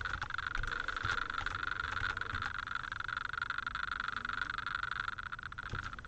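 A steady high-pitched drone, with light computer-keyboard clicks as a search word is typed, the clicks thickening near the end.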